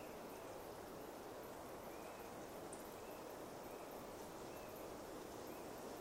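Pine forest ambience: a faint, steady rushing background with short, soft bird chirps repeating about once a second and tiny high ticks scattered through.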